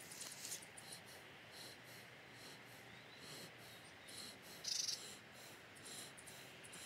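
Faint, high-pitched insect chirping, short chirps repeating every few tenths of a second, with one louder chirp about five seconds in.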